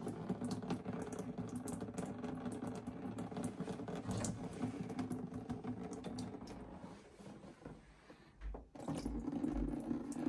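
Water draining from a central heating pump's loosened union, trickling and pattering into a plastic tub. The flow fades about seven seconds in, then picks up again after a brief break.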